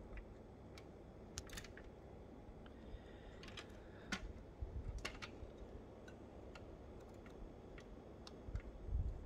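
Scattered light clicks and ticks from the plastic scissor doors and hinged panels of a 1:18 Maisto diecast Lamborghini Diablo SV model being swung open and shut by hand, with a few dull handling thumps, the loudest near the end.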